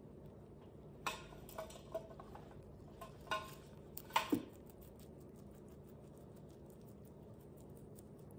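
Rabbit pulling and munching fresh leafy greens: a run of crisp leaf crackles and rustles from about one second in, the loudest just after four seconds as a leaf is tugged from the pile, over a faint steady hum.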